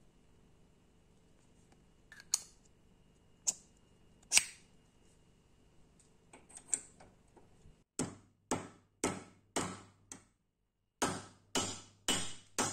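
Small metal pistol parts clicking a few times as they are handled, then a run of sharp metallic taps about two a second, with a short break in the middle.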